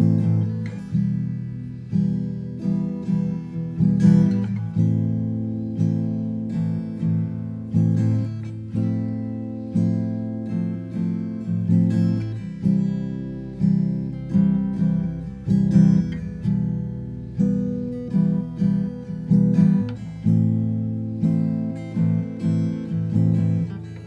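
Background music: acoustic guitar, strummed and picked in a steady rhythm.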